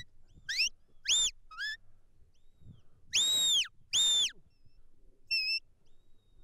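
Sheepdog handler's whistle commands to a working sheepdog. Three quick rising whistles come first, then about three and four seconds in two longer held notes that drop at the end, and a short lower note near the end.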